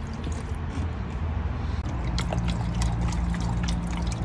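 Fuel additive trickling and splashing from a bottle down the filler neck into a semi truck's metal diesel tank, over a steady low rumble.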